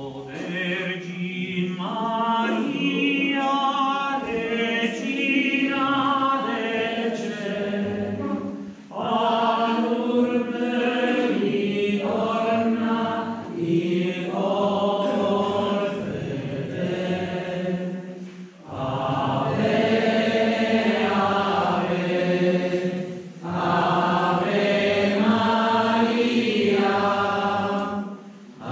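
A hymn sung in slow melodic phrases, with brief breaks between phrases about 9, 18 and 23 seconds in.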